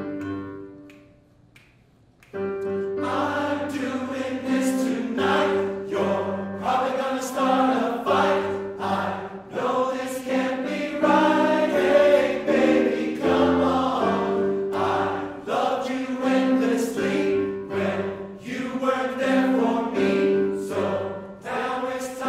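Men's chorus singing in several-part harmony. A held chord fades away at the start, and about two seconds in the singing comes back and carries on in short phrases.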